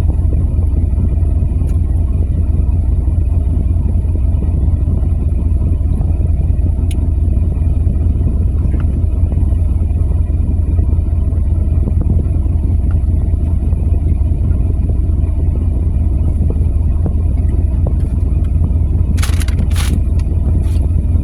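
Steady, loud low rumble throughout, with a few short crackling noises near the end.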